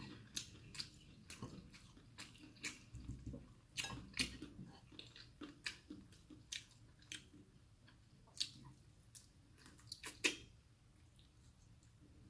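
A person chewing food close to the microphone, with irregular wet mouth clicks and smacks, a couple of them louder.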